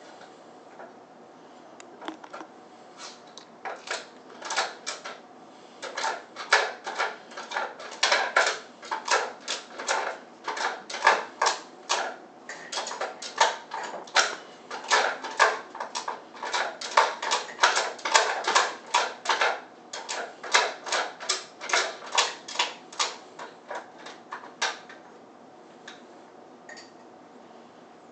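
Hard plastic clicking and clattering as a cavapoo puppy noses and paws at a Kyjen plastic puzzle toy and its removable cups: an uneven run of sharp clicks, about two or three a second, starting about two seconds in and stopping near the end.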